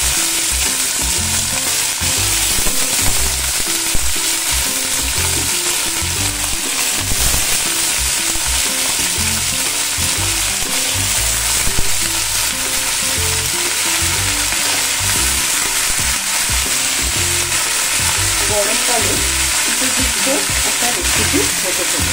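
Raw julienned potato sticks, just added to hot oil in an aluminium kadai, sizzling with a steady loud hiss while they are stirred, with a few sharp clicks along the way.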